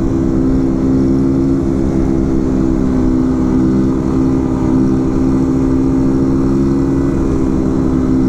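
Kawasaki Z125 Pro's 125 cc single-cylinder engine running at a steady, held pitch while the bike is ridden in a wheelie.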